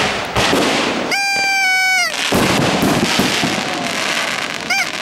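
Fireworks display going off: sharp bangs and dense crackling throughout. A long high whistle starts about a second in and holds for about a second before dropping away, and a brief rising whistle comes near the end.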